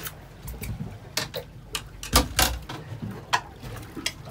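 Irregular sharp clicks and knocks of fishing tackle and the boat as a rockfish is reeled up and swung aboard, about a dozen in all, the loudest pair a little past two seconds in.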